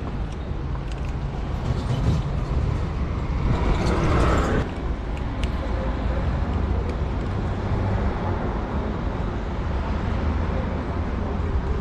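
Steady street traffic rumble, with a louder swell of noise as a vehicle passes about four seconds in.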